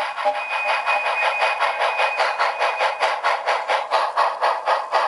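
Recorded steam locomotive chuffing, about four to five chuffs a second, played by a Tsunami 1000 model-railway sound decoder through two small 20mm high-bass speakers in an isobaric box. A thin steady tone sits over the chuffs for the first three seconds. The sound is tinny, with almost no low end.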